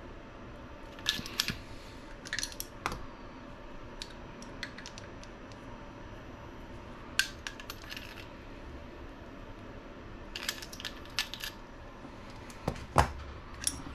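Light metallic clicks and clinks in scattered clusters as shock pliers and a hand tool grip and turn small metal RC buggy shock bodies and caps, with parts set down on the bench.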